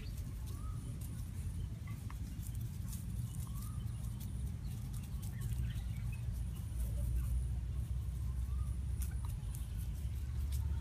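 Two young chickens sparring, giving a few faint short calls now and then, with scattered light ticks, over a steady low rumble.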